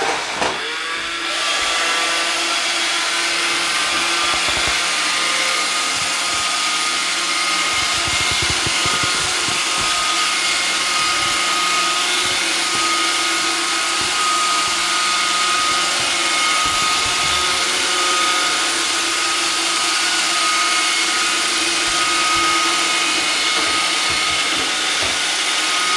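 iRobot Roomba 530 robot vacuum running a cleaning cycle: the steady whir of its vacuum motor and brushes, with a thin steady whine over it. Irregular low knocks come in from about eight seconds in.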